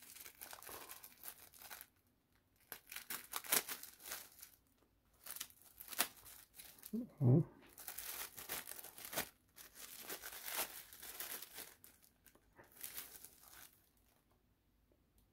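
Clear plastic bag crinkling in irregular bursts as it is handled and opened to pull out folded cloth sails.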